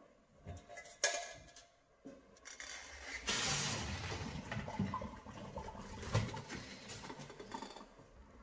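A sharp knock about a second in. Then, from about three seconds in, hot water and boiled grated carrots are poured from a steel saucepan into a colander in a stainless-steel sink: water rushing and splashing down into the sink, loudest at first and tapering off, with a few knocks of the pan.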